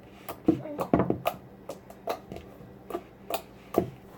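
Homemade slime with beads mixed in being squeezed and stretched by hand, giving irregular sharp clicks and pops, several in quick succession about a second in.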